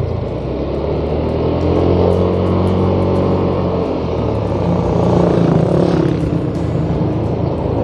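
Motor scooter's engine running under way, its pitch rising and falling twice as the throttle opens and closes, over a steady low rumble of wind and road noise.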